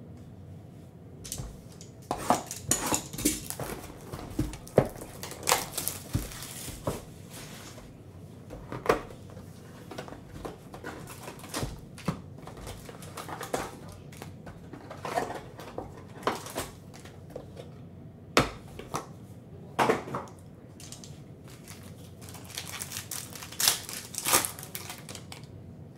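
Plastic shrink wrap, cardboard and foil card packs crinkling, rustling and tearing as a sealed hobby box of trading cards is unwrapped, opened and its packs pulled out and torn open. The noises come in irregular crackles and clicks, in two busy spells, after about two seconds and again near the end.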